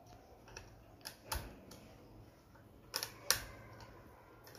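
A few light, sharp clicks of a small screwdriver working the screw of a plastic terminal block on a ceiling fan motor, coming in two pairs about two seconds apart.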